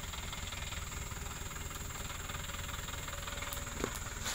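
Off-road 4x4's engine running at a low, steady idle as it crawls slowly down a muddy track, with a single sharp click a little before the end.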